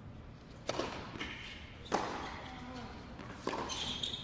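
Tennis ball impacts on an indoor hard court: three sharp pops about a second and a half apart, each with a short echo.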